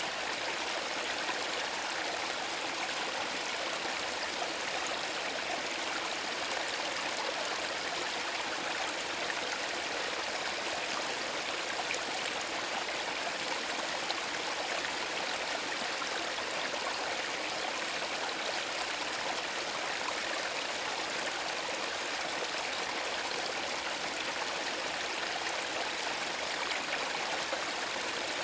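Small woodland brook trickling and babbling over stones, a steady splashing with most of its sound in the middle and high pitches.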